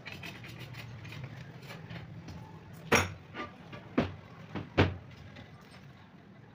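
A pane of glass handled on a wooden worktable: three sharp knocks, the first about three seconds in and the other two within the next two seconds, over a low steady hum.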